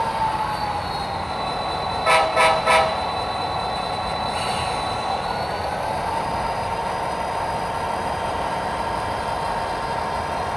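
Three short diesel horn blasts, played by a model locomotive's sound system on an HO scale layout, about two seconds in, over a steady running drone with a faint whine.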